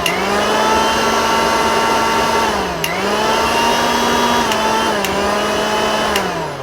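Kenstar mixer grinder's motor running at full speed with a loud, steady whine. About three seconds in, the pitch dips briefly with a click and then recovers. Near the end it is switched off and winds down.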